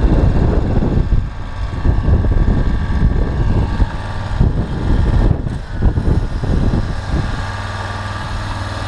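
Suzuki RF600 inline-four motorcycle engine in an off-road buggy, running unevenly and surging at first, then settling into a steady idle about seven seconds in. It runs on a newly fitted set of RF600 carburettors that still need synchronising.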